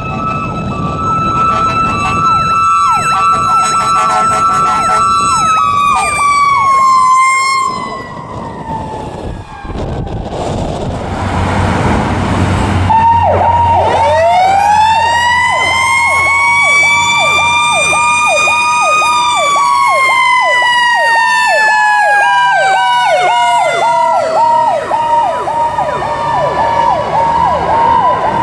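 Electronic Powercall sirens on fire apparatus, two tones at once: a rapid pulsing yelp-like tone, and a wail that winds up, holds and slowly falls. Around the middle the sirens fade for a few seconds under a rushing noise, then a wail winds up again over the rapid pulsing tone.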